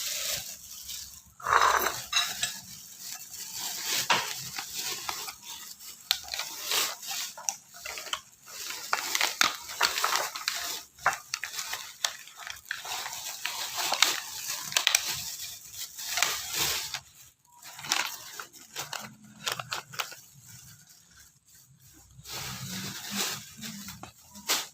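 Irregular clatter and rustling of kitchen things being handled, with many small knocks and scrapes.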